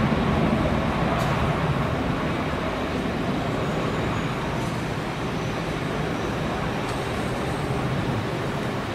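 Airbus A330-300's twin Rolls-Royce Trent 700 jet engines at takeoff thrust, a steady jet roar as the airliner lifts off and climbs away, slowly growing quieter.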